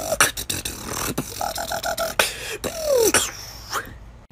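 Vocal beatboxing that imitates a robot: sharp mouth clicks and hits, a quickly stuttered electronic-sounding tone, and a falling pitch sweep. It dies away about four seconds in.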